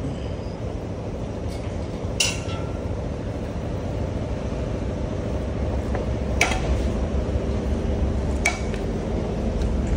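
A few sharp metallic clinks over a steady low engine hum that gets a little louder toward the end.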